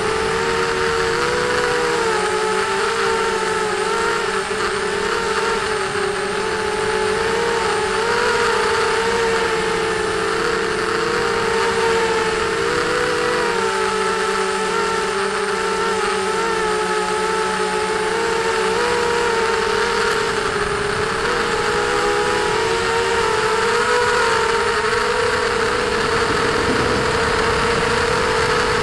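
Whine of a ZMR250 quadcopter's 2300 kV brushless motors and propellers in fast, low flight, heard through its onboard camera. The pitch wavers up and down continually as the throttle changes.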